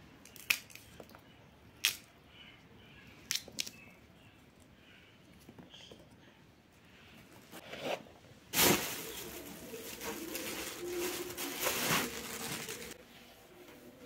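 Fresh green peas being shelled by hand: a few sharp clicks in the first few seconds as pods snap open and peas drop into a plastic bowl. About eight and a half seconds in comes a loud rustling, crinkling noise that lasts about four seconds and stops suddenly.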